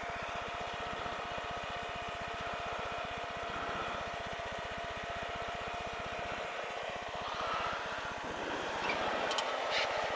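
Light aircraft's piston engine running at low power while taxiing, a rapid even pulsing with a steady whine over it. The low pulsing briefly thins out a little past the middle, and a few clicks come near the end.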